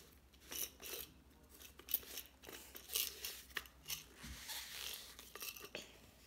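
A cardboard kaleidoscope tube being turned and twisted in the hands: a run of faint, irregular scrapes, clicks and rattles, with one sharper click about two seconds in.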